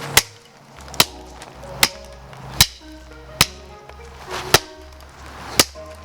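Background music with a slow beat, punctuated by sharp, loud hits roughly every 0.8 seconds.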